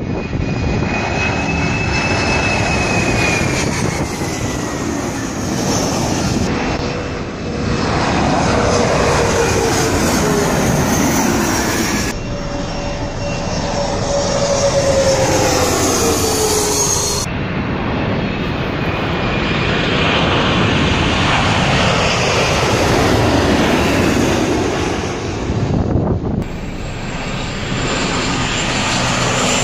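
Airliners passing low overhead on approach, in a string of short clips: jet engines with a steady rush and a whine that falls in pitch as each plane goes over, among them an Airbus narrowbody jet at the start and a CRJ regional jet in the middle. After a cut near the end, a Dash 8 turboprop passes.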